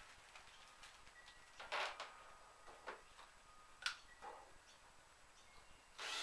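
Mountain ash easel parts being handled and fitted together: a few scattered wooden knocks and clatters, the loudest about two seconds in, a sharp click near four seconds, and another clatter at the very end.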